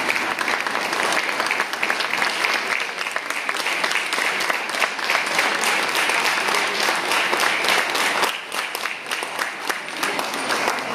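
Audience applauding: dense, steady clapping that dips briefly about eight seconds in and then carries on a little thinner.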